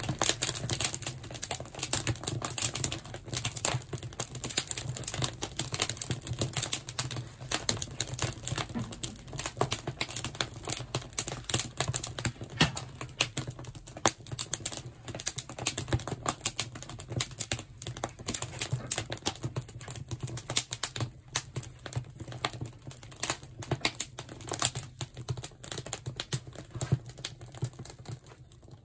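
Wood fire crackling and popping in the firebox of a wood-fired salt-glaze kiln, a dense run of sharp irregular snaps over a steady low hum.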